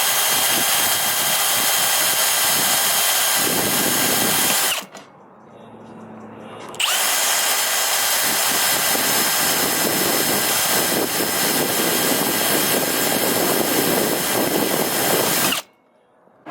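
Power drill drilling out rivets: a steady motor whine that winds down about five seconds in, spins back up about two seconds later and runs until it stops just before the end.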